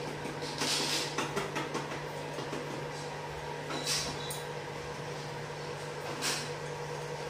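Kitchen handling sounds: a few brief rustles and scrapes as flour is poured from a plastic container into a steel plate and a plastic bag is handled. A steady low hum runs underneath.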